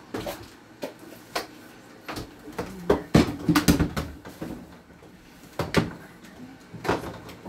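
Knocks and clatters of things being handled around a kitchen counter and stove, loudest in a quick cluster about three to four seconds in.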